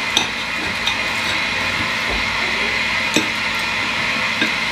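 Knife and fork clicking against a ceramic plate a few times, short sharp taps, as a flaky pastry sausage roll is cut and a piece is picked up, over a steady background hiss.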